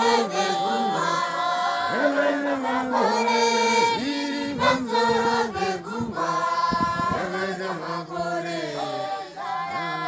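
A congregation of many voices, women's and men's, singing together in chorus, with held notes and no pause.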